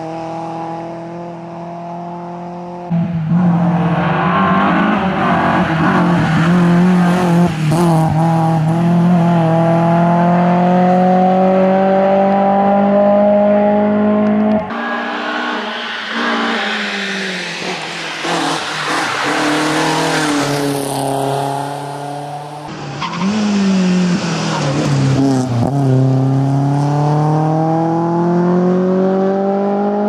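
BMW E30 318iS rally car's 1.8-litre four-cylinder engine at full throttle, revving high and climbing in pitch through the gears, dropping at each shift and off-throttle into the bends, heard over several separate passes.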